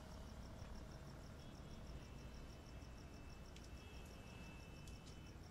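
Near silence: faint background hum with a rapid, even, high-pitched chirping pulse like an insect's trill.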